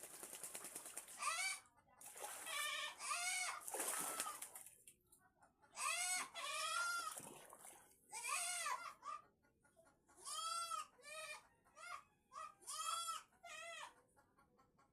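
Ducks quacking repeatedly in runs of several short calls, with splashing water in the stretches between.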